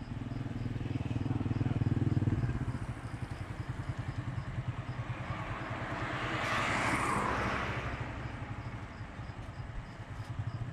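A motorcycle passing on the road: it grows louder to a peak about two-thirds of the way through, then fades. A low, steady engine hum sits under it at the start.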